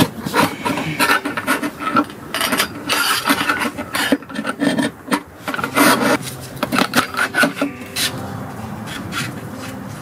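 Firewood logs being handled, scraping and knocking against each other in quick, irregular strokes, then settling into a softer, steadier rubbing for the last couple of seconds.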